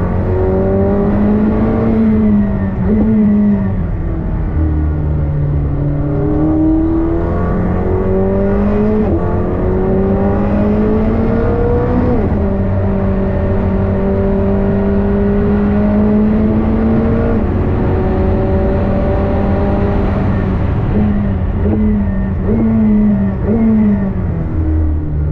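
McLaren 765LT's twin-turbo V8 driven hard on a race lap. The revs climb and drop sharply at each upshift, about two, three, nine and twelve seconds in, then hold nearly steady at high speed. Near the end they fall and rise in short steps through a series of downshifts.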